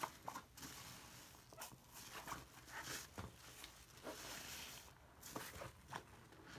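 Wet squishing and squelching of a soapy bath slime and thick lather being squeezed and kneaded by hand, in irregular bursts with a foamy hiss.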